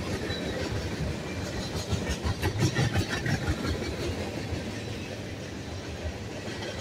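Freight cars of a passing train rolling by, steel wheels rumbling on the rails, with a run of sharp clacks about two to three seconds in.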